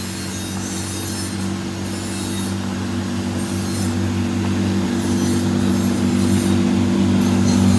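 Speedboat's stock Yanmar 4T112 inboard engine running hard as the boat planes by at speed, a steady drone that grows gradually louder as the boat comes nearer.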